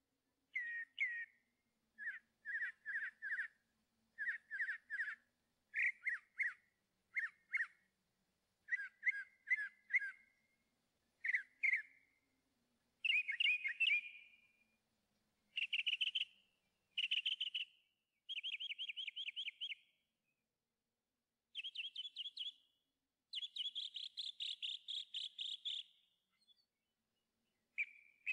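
Bird song: short chirping notes in quick groups of two to four, then about halfway through, longer rapid trilled phrases, higher-pitched, with dead silence between phrases.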